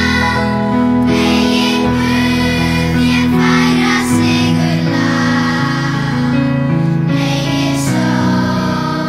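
Children's choir of girls singing in unison, sustained sung notes of an Irish melody set to Icelandic words, with piano accompaniment underneath.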